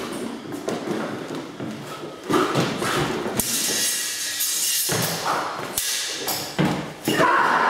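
Stage smallsword fight: irregular thuds of feet stamping and stepping on a wooden floor, with sharp knocks and clicks as the steel blades meet.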